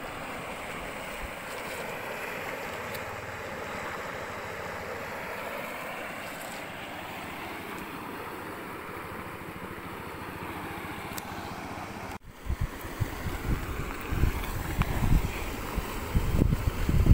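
Steady rushing wind noise. About twelve seconds in the sound cuts out for a moment, and after that gusts of wind buffet the microphone in louder, irregular low rumbles.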